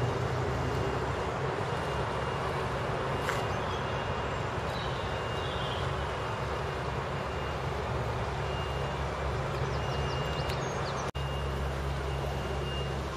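City street ambience: steady hum of road traffic and vehicle engines.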